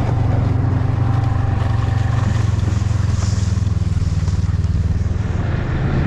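Snowmobile engine running at a steady pitch while the sled is under way.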